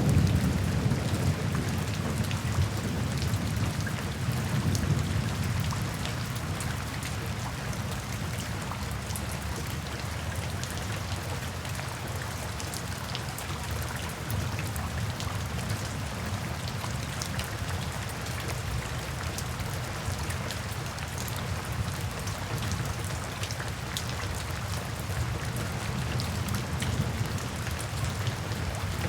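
Steady rainfall with individual drops ticking. A low rumble of thunder at the start fades away over the first few seconds.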